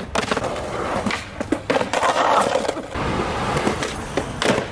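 Skateboard rolling, with several sharp clacks of the board hitting the ground during trick attempts; the rolling is loudest about two seconds in.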